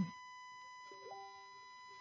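A quiet pause holding a faint, steady high-pitched electrical whine in the recording, with a brief soft tone about a second in.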